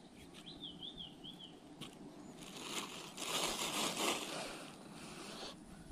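Thin plastic bag crinkling and rustling as the chicken bait in it is handled, loudest about three to four seconds in. A bird gives a short wavering call about half a second in.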